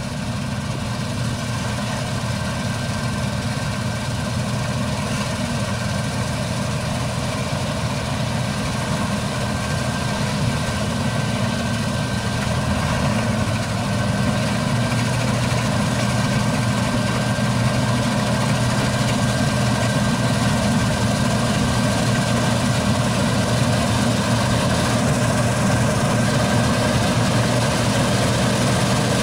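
Claas Lexion 750 combine harvester running under load while cutting wheat: a steady engine-and-machinery drone with several constant tones. It grows louder about halfway through as the combine comes closer.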